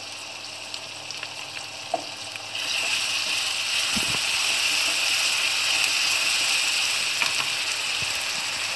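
Oil sizzling in a kadai as ginger-garlic paste and onions fry, growing louder about two and a half seconds in. There are a few clicks of the utensil scraping against the pan.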